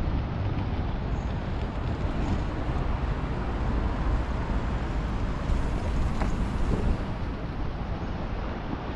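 Steady rumble and hiss of inline skate wheels rolling over the concrete, mixed with wind on the microphone and city traffic.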